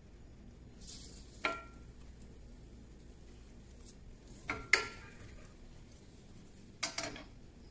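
Kitchen utensils clinking against dishes or cookware: a soft scrape about a second in, then a knock, a double knock past the middle and another pair near the end, some of them leaving a short ring.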